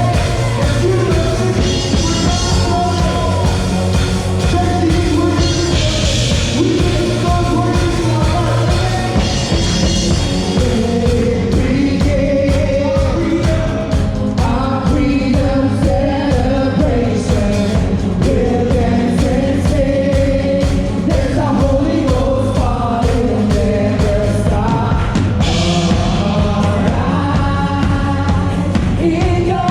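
Worship music in a rock style: singing over a full band with a steady, heavy low end. Bright crash-like flares come four times, about 2, 6, 10 and 26 seconds in.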